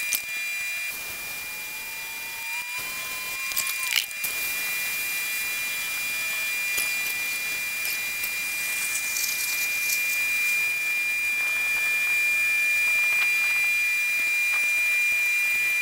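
Air hissing steadily out of a tire being let down, with a thin steady high whistle, louder after a couple of clicks about four seconds in. The tire's belts have separated and it has ballooned, close to blowing out.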